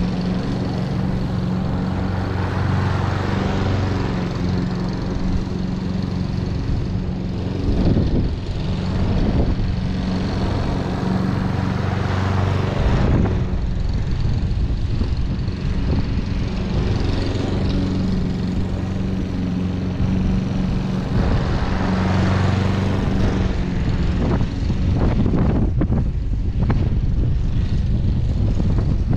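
Hayter Pro 41 petrol walk-behind lawn mower running steadily while cutting grass, its engine note holding with small shifts in pitch.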